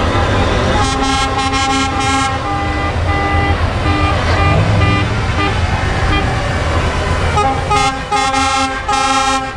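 Truck horns sounding in long, steady blasts, one about a second in and another near the end, over the low rumble of a Scania tractor unit's diesel engine driving past.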